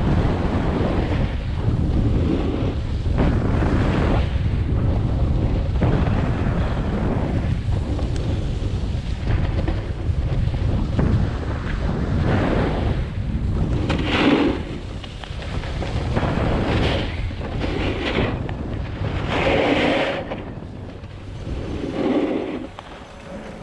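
Wind buffeting an action camera's microphone during a snowboard run, a steady low rumble. Several louder scrapes of the snowboard's edge on packed snow come in the second half. The wind noise eases toward the end as the board slows.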